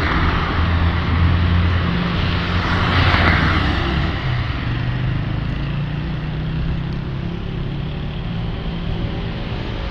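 Street traffic: cars driving past, with a steady low engine rumble and tyre noise that swells as a car passes close about three seconds in.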